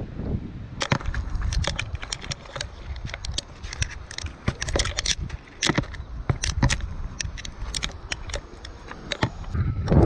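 Footsteps over loose river cobbles: stones clicking and clacking underfoot in quick, irregular sharp knocks, over a low wind rumble on the microphone.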